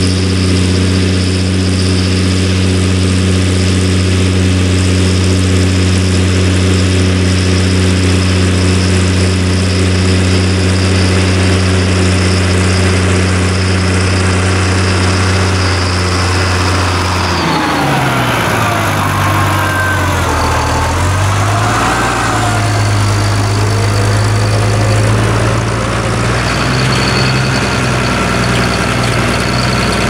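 International Harvester 956 XL tractor's six-cylinder diesel engine running steadily as it pulls a reversible plough across the field. About 18 seconds in, the engine pitch dips and wavers for a few seconds, then settles steady again as the tractor draws close.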